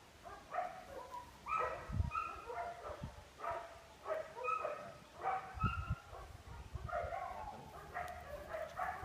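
A dog barking over and over in short, high-pitched yaps, about two a second, with a couple of low thumps in between.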